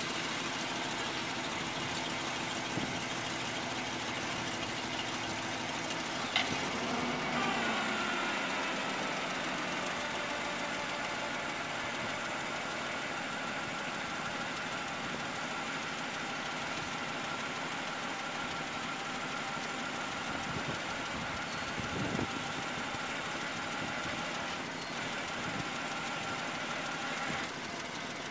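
The tow truck's 7.4-litre V8 engine running steadily. A sharp clunk comes about six seconds in, and just after it a steady whine sets in, dipping in pitch as it starts and lasting until near the end.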